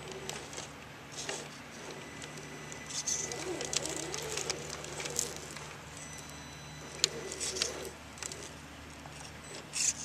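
Axial SCX10 radio-controlled scale crawler working over rock: its small electric motor and gearbox whine, the pitch wavering up and down in spells, with sharp clicks and scrapes of tyres on stone.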